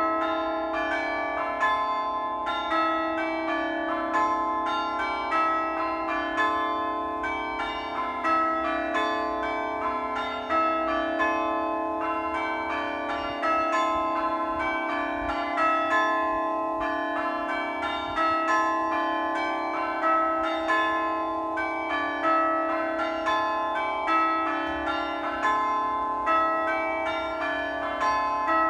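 Church bells ringing a continuous peal: strike follows strike in an even rhythm, each bell ringing on under the next.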